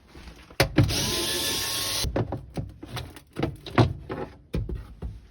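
A power tool runs in a single burst of about a second, followed by a string of knocks and clatters.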